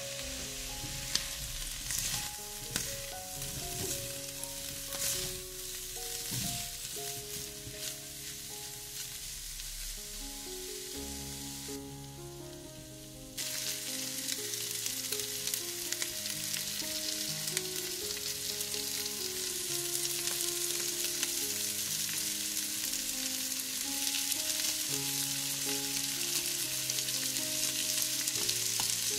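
Food frying in oil in a pan, a steady sizzle with a few sharp taps of a utensil stirring in the first several seconds. Just under halfway through the sizzle drops away briefly and returns louder. Soft melodic background music plays underneath.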